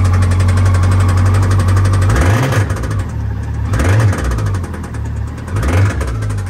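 A car's transplanted motorcycle engine idles, then is revved three times by hand on the throttle pedal, each rev rising and falling back. It runs with a knock that the owner puts down to connecting rod bearings worn so thin by oil starvation that they spun, leaving the rods slapping on the crankshaft.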